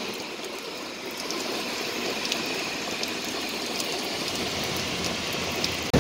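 Steady rain falling, an even hiss with scattered light taps of drops landing close by.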